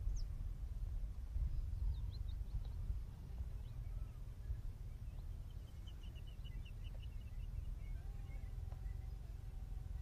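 Outdoor ambience of wind rumbling on the microphone with faint bird calls: a few short high chirps about two seconds in, then a quick run of chirps in the middle. A faint steady tone comes in near the end.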